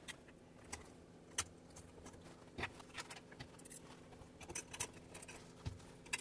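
Faint, irregular clicks and light clatter of a circuit board and small metal parts being handled and fitted into an opened electronic sewing machine's frame, with a few sharper ticks scattered through.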